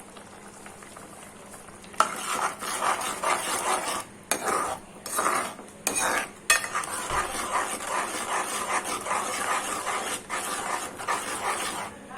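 A spoon stirring and mixing a wet spice paste, scraping against its vessel with a squelching sound. It starts about two seconds in and goes on with a few short pauses.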